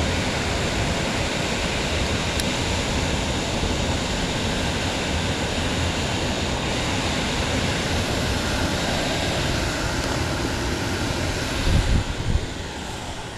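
Steady, even rushing of an HVAC unit's fan running with its access door off. A few knocks come near the end, and then the noise gets quieter.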